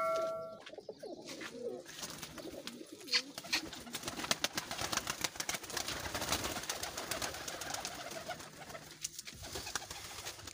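Domestic flying pigeons cooing, with a dense clatter of wings flapping as the birds come out of their opened loft. A bell-like chime fades out in the first half-second.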